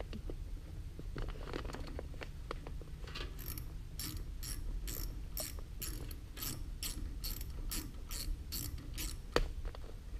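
Ratchet tool clicking steadily, about three clicks a second, as it backs out one of the quarter-inch bolts holding the X13 blower motor's control module. Faint knocks come before the run, and one sharper click comes near the end.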